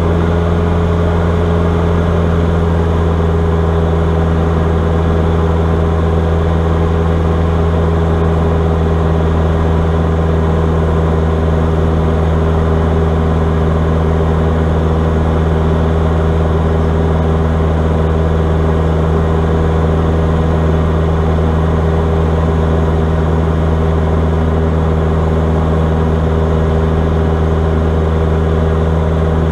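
Diamond DA40 light aircraft's piston engine and propeller running steadily in flight at a constant pitch, heard from inside the cabin.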